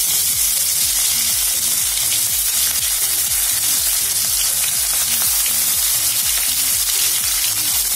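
Rohu fish pieces coated in turmeric and salt sizzling in hot oil in an aluminium karahi: a loud, steady frying hiss as the pieces are laid into the oil one after another.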